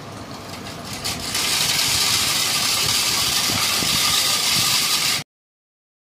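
Soft rubbing of hands shaping a ball of oiled mashed potato. About a second in, a loud steady hiss starts and then cuts off suddenly near the end.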